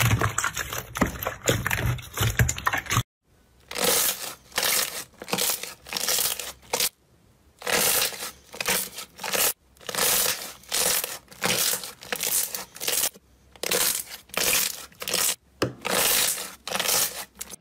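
Hands pressing slime in a plastic bowl make a dense run of wet crackles, which cut off about three seconds in. Then glossy slime is squeezed and folded by hand, giving short crackling squelches of trapped air popping about twice a second, with brief pauses.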